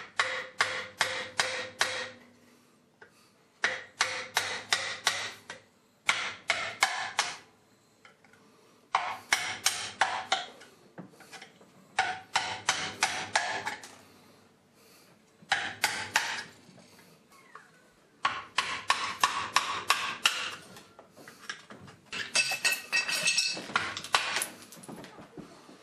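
Hammer driving a sharp screwdriver into the front wall of a Whirlpool washer drain pump that is stuck on its motor shaft, to break the pump open and get at the impeller. The blows come in quick runs of about four or five a second, with short pauses between the runs.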